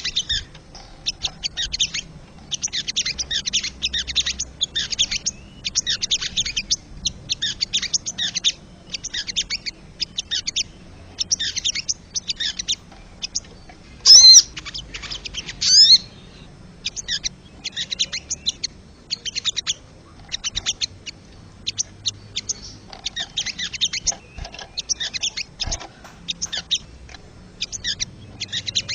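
Wild sogon bird calling: short bursts of rapid, sharp high-pitched notes repeated every second or so, with a much louder pair of sweeping whistled notes about halfway through.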